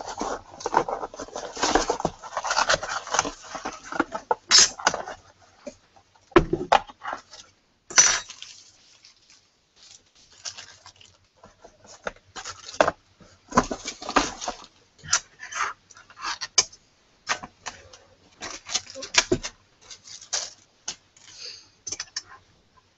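Hands handling small computer parts and packaging on a desk: irregular clicks, knocks and rustling, with a denser stretch of rustling over the first few seconds.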